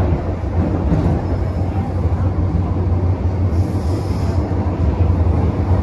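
Metro-Cammell M-Train electric multiple unit running, heard from inside the car: a steady rumble of wheels on rail with a deep hum, and a short faint high hiss about three and a half seconds in.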